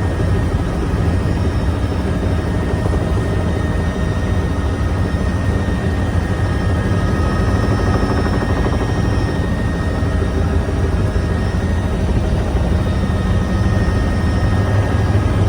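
Helicopter in flight, its rotor and engine making a steady low drone with a faint high whine held above it.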